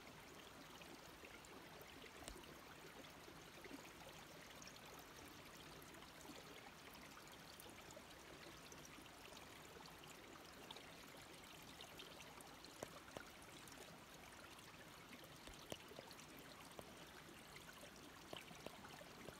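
Shallow water flowing in a thin sheet over ice, a faint steady trickling rush with a few small ticks scattered through it.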